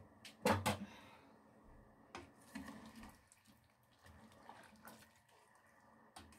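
A ladle stirring pork pieces in a stainless steel pot of water, with sharp knocks of the ladle against the pot, loudest about half a second in and then lighter ones now and then, and the water sloshing.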